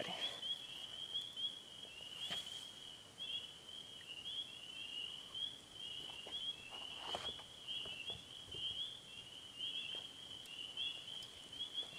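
A steady high-pitched chorus of calling night animals runs throughout. A few soft knocks come about two seconds in and again around seven seconds, from a small walleye flopping on the wooden dock boards.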